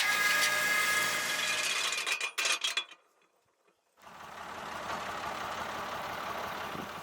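Tractor-driven flail mulcher running, a steady mechanical din with a high whine, breaking off with a few clicks about two seconds in. After about a second of near silence, a quieter steady rushing noise of the machine at work follows.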